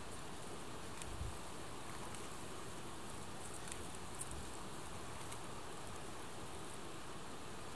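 Steady outdoor background hiss, with a few brief, very high-pitched chirps scattered through it.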